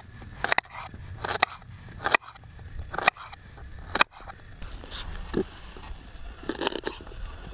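Kitchen knife slicing a raw carrot into rounds on a wooden cutting board: crisp crunching cuts, each ending in a knock on the board, about one a second, with a quicker run of cuts near the end.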